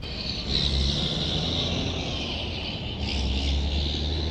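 Small gasoline engine of a home-built motorized wheelchair running steadily: a constant low hum with a hiss above it.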